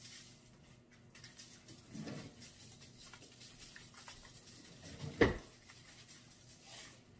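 Kosher salt shaken from a canister onto buttered corn cobs on a foil-lined tray: a faint patter of grains, with one sharp knock about five seconds in.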